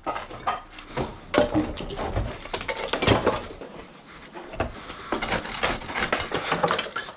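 A long pole knocking and scraping against the rendered plaster of a house wall: a run of irregular sharp taps, sounding the render to find hollow, loose spots among the cracks.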